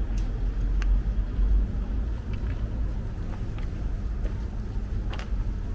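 Steady low rumble of city road traffic, with a few faint ticks scattered through it.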